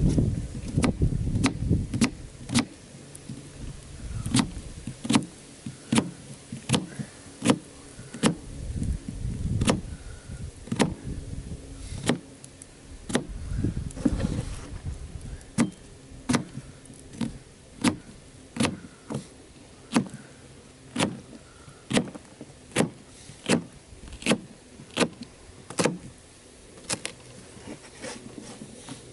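Kitchen knife chopping an onion on a tabletop: a run of sharp knocks as the blade strikes the board, about one and a half a second and steadier in the second half, with heavier low thumps now and then in the first half.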